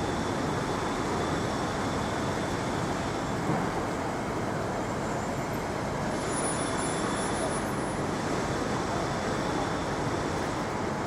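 Steady city street traffic noise, a constant wash of passing vehicles with no single event standing out.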